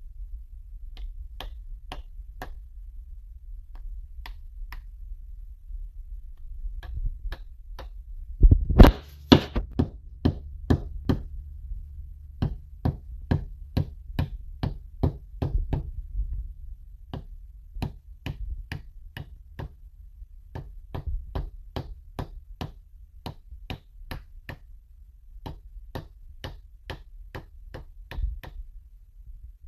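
A new pinion seal being tapped into a Ford 9-inch differential's pinion retainer: a long series of sharp metal knocks, about one or two a second, with the hardest blows about nine seconds in.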